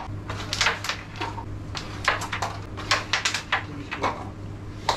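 Carrom striker and carrom men clicking sharply as they are flicked and knock into each other and the board's frame: many quick clicks at irregular spacing, with a faint low hum underneath.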